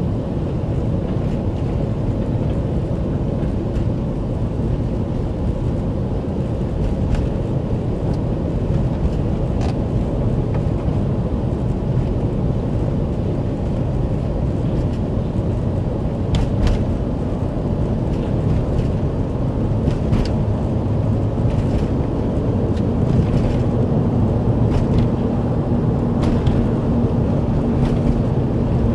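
Steady road rumble of a car driving on a snow-covered road, tyre and engine noise, with scattered faint ticks. A low steady hum joins about two-thirds of the way through.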